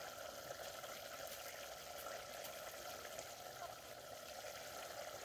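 Stew simmering in an aluminium pot over a wood fire: a faint, steady bubbling hiss with a few soft ticks.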